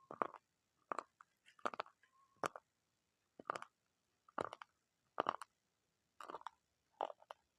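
Crunchy food being chewed close to the microphone: a steady series of about nine sharp crunches, a little more than one a second.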